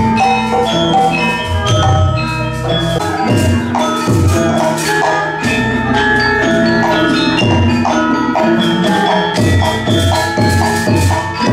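Gamelan music accompanying a Sundanese mask dance: bronze metallophones ring a struck melody over repeated deep drum strokes.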